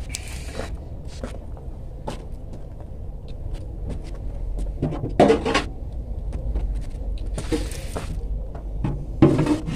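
Objects being handled and set down on a table, a few knocks, clicks and rustles, over a steady low rumble.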